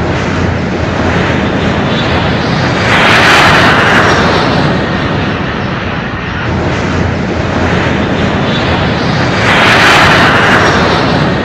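Airplane engine sound, a steady noisy drone that swells louder twice, once near the middle and again near the end.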